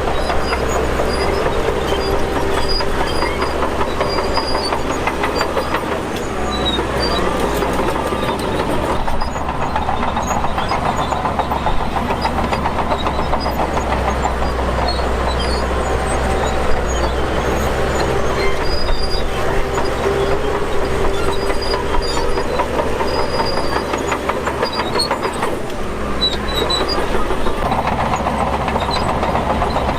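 Shantui DH17 crawler bulldozer working: its diesel engine runs steadily under load while the steel tracks clatter continuously. The level dips slightly around six seconds in and again near twenty-five seconds.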